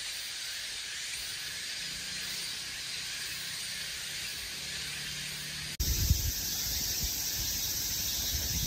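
Steady outdoor ambient hiss. About six seconds in it cuts suddenly to a louder hiss with irregular low rumbling.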